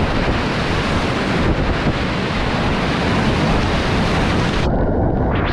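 Whitewater rapids of a river running at high flow, rushing loudly and steadily, with wind buffeting the microphone. Near the end the high part of the sound falls away and it turns muffled.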